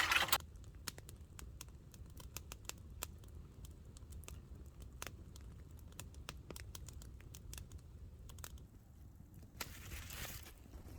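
Faint, irregular small clicks and crackles scattered throughout, with a brief rustle about ten seconds in.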